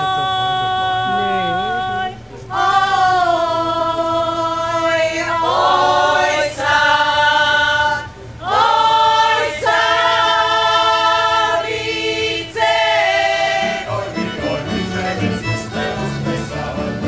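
Women's folk choir singing a Croatian folk song in long, held phrases, with short breaks between phrases. The singing stops about 14 seconds in.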